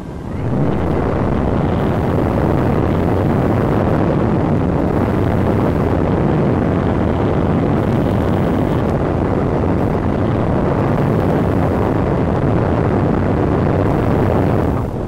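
Loud, steady rush of wind buffeting the onboard camera microphone of a Multiplex Cularis RC glider in fast flight. It comes in abruptly about half a second in and eases off just before the end.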